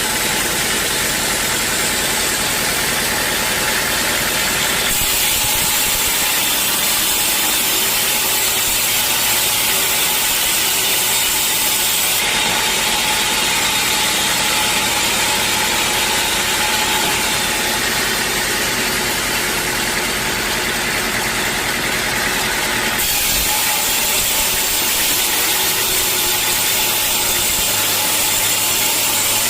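Sawmill machinery running, a loud, steady mechanical din with a strong hiss, which shifts abruptly in tone a few times.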